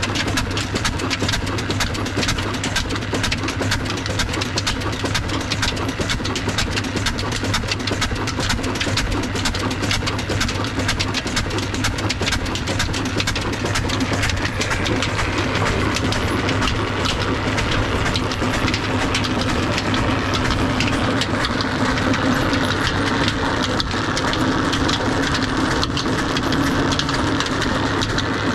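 Big old horizontal diesel engine with heavy flywheels (a desi 'double engine') running steadily under load, driving a tubewell water pump by a flat belt, with a rapid even beat over a low hum. From about halfway on, a higher whir joins in from the running belt and pump pulley.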